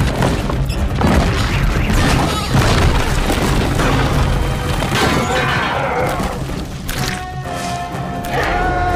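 Action film soundtrack: dramatic music over heavy booms and crashing, smashing debris as a street breaks apart.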